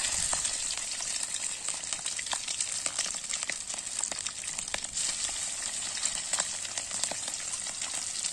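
Pieces of fish frying in hot oil in a kadai: a steady sizzle with constant spitting crackles.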